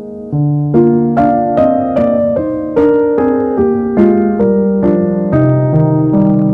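Slow, gentle solo piano music: a melody of single struck notes about two or three a second over held low bass notes.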